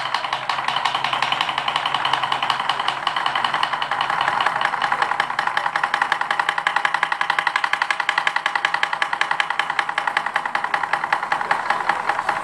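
Taiko drummers playing a fast, even clatter of stick strikes on the wooden rims of their drums, with little of the deep drum-head boom.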